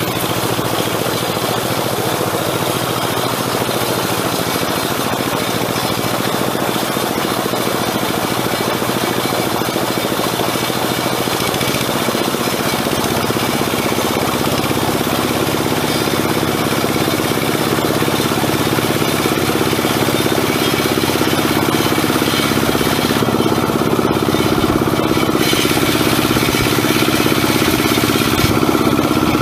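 Single-cylinder diesel engine of a two-wheel hand tractor running steadily under load while ploughing deep paddy mud. About halfway through the engine note drops lower and grows a little louder.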